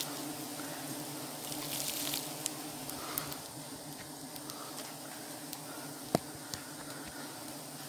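A disturbed honeybee colony buzzing around its cut-open wild comb in a steady hum, with scattered small clicks and one sharp snap about six seconds in.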